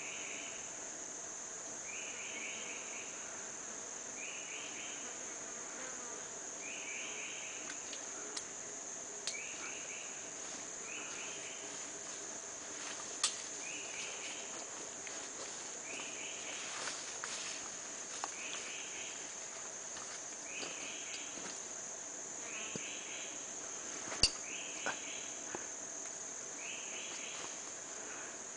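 Tropical forest insect chorus: a steady high-pitched drone, with a short chirping call repeating about every two seconds. A few sharp clicks stand out, the loudest about 24 seconds in.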